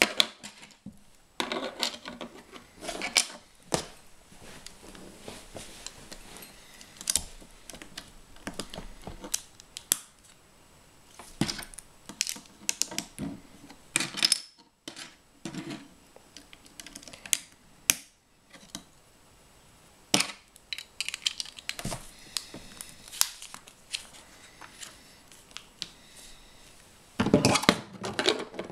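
Plastic LEGO bricks clicking and clattering as they are handled, pressed together and set down, in irregular bursts of small sharp clicks, with a dense spell of clatter near the end.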